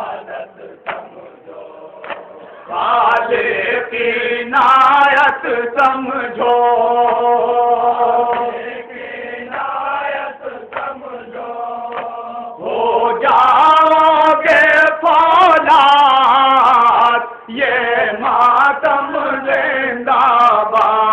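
Men's voices chanting a noha, a Shia mourning lament, led by a man at a microphone in long held lines. It is quieter for the first couple of seconds, then fuller.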